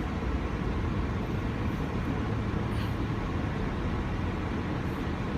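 Steady road and engine noise inside the cabin of a 4x4 on the move, low and even with no breaks.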